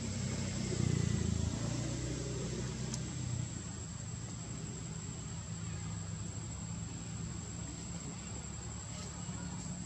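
A motor vehicle's engine running steadily nearby, a low hum that swells briefly about a second in. A thin, steady high-pitched whine sits over it.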